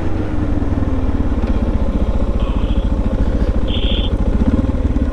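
Suzuki DR650's single-cylinder engine idling with a rapid, even thumping after the bike pulls over. Two short high beeps sound in the middle.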